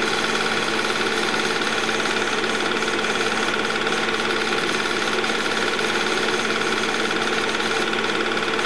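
Home-movie film projector running: a loud, steady mechanical whir with a constant pitch and no change throughout.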